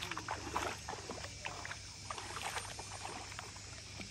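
Water splashing and sloshing as a child wades through a shallow pool: many small splashes, busy through the first three seconds and thinning out near the end, over a faint low steady hum.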